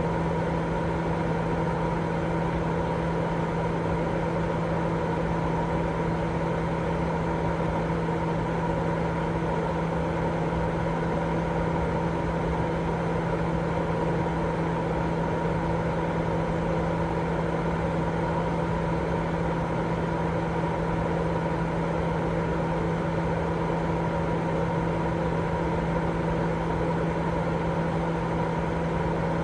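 Continuous baby-sleep white noise: a steady, unchanging rushing hiss, strongest in the low and middle range, with a low steady hum running through it.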